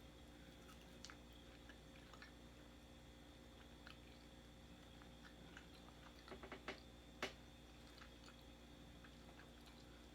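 Faint chewing of a spicy chicken sandwich: mostly quiet, with scattered soft mouth clicks and a short run of louder clicks about six to seven seconds in.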